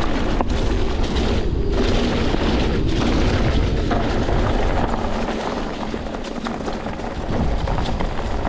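Wind buffeting a helmet-mounted action camera's microphone as a mountain bike is ridden fast on a dirt trail, a loud low rumble with tyre noise and sharp rattles and knocks from the bike over the ground; it eases off briefly about six seconds in.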